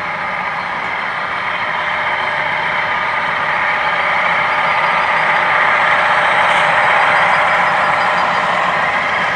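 Onboard sound decoders in HO-scale CSX diesel locomotives (a ScaleTrains SD40-3 leading two Intermountain GE Evolution units) playing diesel engine sound through their small speakers. The sound grows louder as the locomotives pass close by and is loudest about six to seven seconds in.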